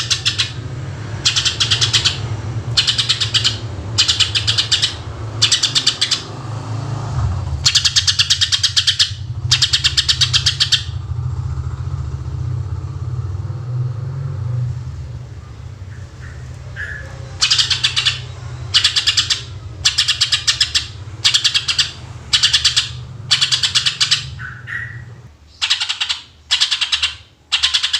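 Cucak ijo (leafbird) singing in rapid-fire trilled bursts, each under a second long and repeated about once a second, with a pause of several seconds in the middle. A steady low hum runs underneath and stops near the end.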